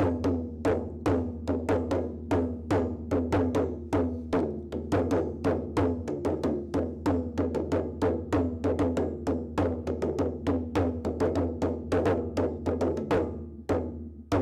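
Indian drumming in a fast, even rhythm, several strokes a second, each stroke ringing at a clear pitch, over a steady low drone; the strokes thin out near the end.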